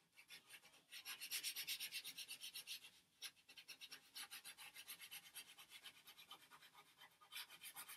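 Faint scratching of a pastel stick on paper in quick, even strokes, about six a second, as an area is coloured in; the strokes are softer in the middle and louder again near the end.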